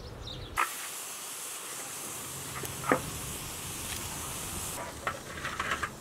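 Wood fire crackling and hissing, with two sharp pops, the louder one about three seconds in, then a run of small crackles near the end.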